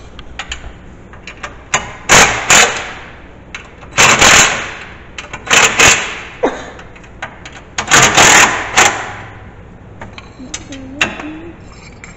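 Cordless impact driver hammering in four short bursts about two seconds apart, loosening the bolts of a snow plow mount plate.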